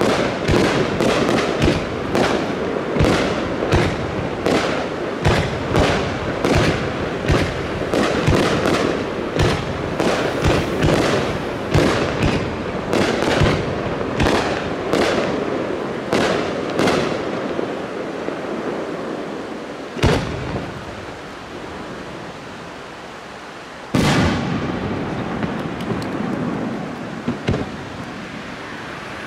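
Aerial firework shells bursting in quick succession, a steady barrage of bangs one to two a second. About two-thirds of the way through the barrage thins out, leaving two last single bangs a few seconds apart.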